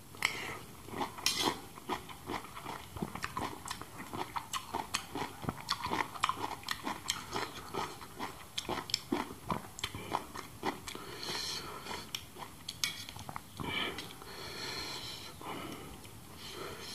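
Close-up chewing and mouth sounds of a person eating a mouthful of rice, a steady run of many short wet smacks and clicks.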